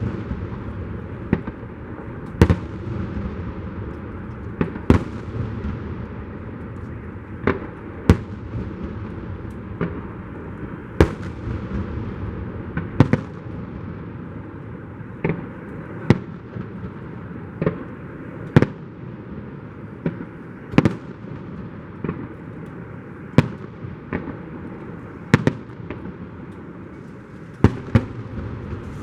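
Fireworks display: aerial shells bursting with a sharp bang every one to two seconds, over a continuous rumbling crackle from the other bursts.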